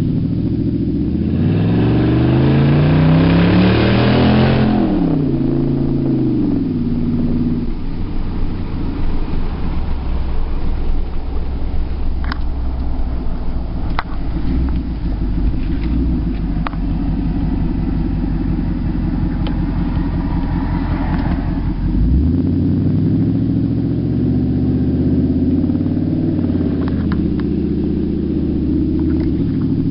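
Nissan Titan's 5.6-litre V8 running with no exhaust fitted, heard from inside the cab while driving. The engine note rises sharply for a few seconds under acceleration, then falls and settles into a steady low drone while cruising. About two-thirds of the way through it climbs again, more gradually.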